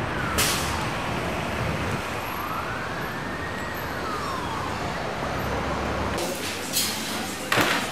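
A siren wails slowly up and down over steady city traffic noise, with one full rise and fall in the middle. About six seconds in, the traffic noise drops away and a few sharp clicks and knocks follow, the loudest near the end.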